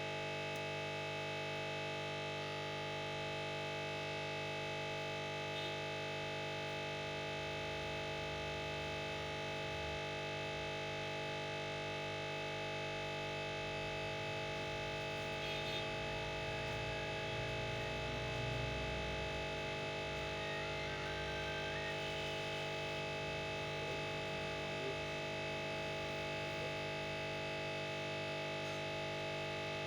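Steady electrical hum and whine of a hot-air rework station blowing on a tablet's charging port to melt its solder, with a slight swell in the low hum about two-thirds of the way through.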